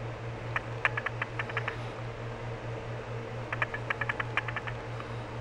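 Two quick clusters of light clicks and ticks, about half a second in and again past the middle, from gloved hands handling a small metal cross-section microscope slide while threading a fiber bundle into it, over a steady low hum.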